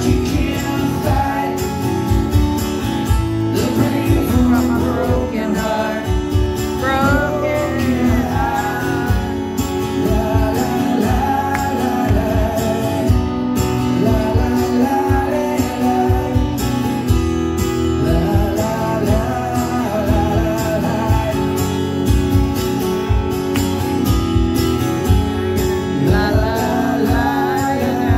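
A man singing a rock ballad live, accompanied by his own strummed acoustic guitar.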